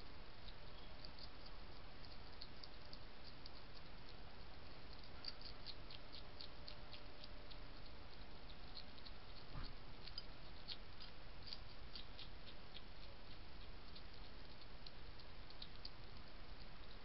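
A European hedgehog chewing dry kitten biscuits from a dish: quick, irregular runs of small crisp crunches over a steady hiss, with one louder knock a little past halfway.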